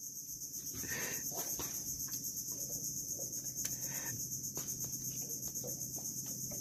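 Steady high-pitched chorus of insects buzzing, pulsing rapidly, with a few faint clicks.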